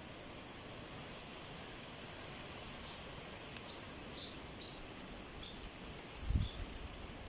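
Outdoor ambience with scattered short, high chirps of small birds, a few seconds apart. A dull low thump near the end.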